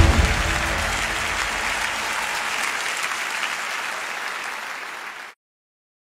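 Audience applauding at the end of a live song, with the last musical chord dying away at the start. The applause slowly fades and then cuts off abruptly about five seconds in.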